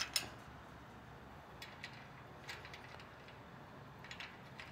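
A few faint, scattered metal clicks as nuts are threaded by hand onto the bolts of a chain link gate latch bracket on a galvanized steel post.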